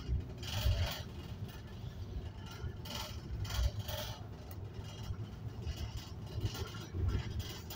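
Low engine and road rumble heard from inside a moving bus, with a few brief higher noises breaking through about half a second, three and four seconds in.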